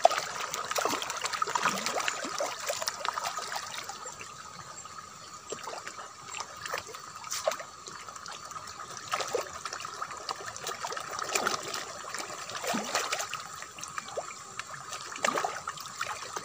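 Carp and tilapia crowding at the surface of a pond to feed, churning the water in a constant run of small, quick splashes, busiest in the first few seconds.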